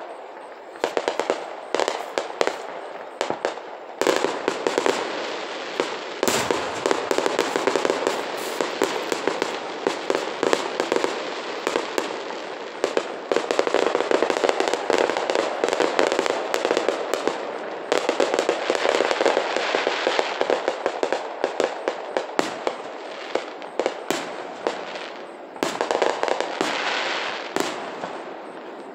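Fireworks display: a continuous barrage of aerial shell bursts and crackling, with rapid sharp pops throughout and one heavier boom about six seconds in.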